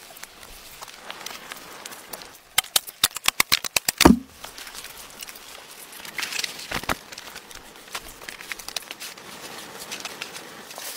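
Wood campfire crackling with scattered sharp pops. A quick run of loud clicks about two and a half seconds in ends in a heavier knock about four seconds in.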